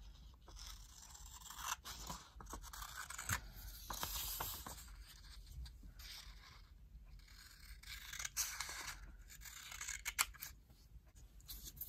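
Scissors snipping through a strip of origami paper, faint crisp cuts in two runs, one across each of two pencil lines.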